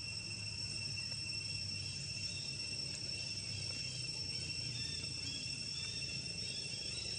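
Steady, unbroken high-pitched insect drone, with a second higher tone above it and a low hum underneath; faint short chirps come in during the second half.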